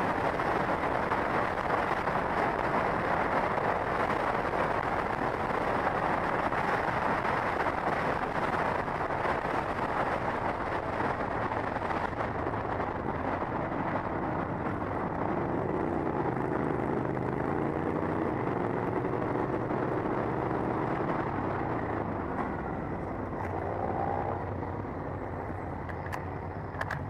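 Sport motorcycle's engine running at road speed under a steady rush of wind on the on-bike camera's microphone. A few seconds before the end, the engine pitch shifts and glides.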